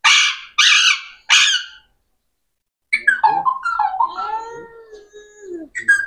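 Alexandrine parakeet giving three short, harsh squawks in quick succession, then, about three seconds in, a longer stretch of warbling chatter that rises and falls in pitch.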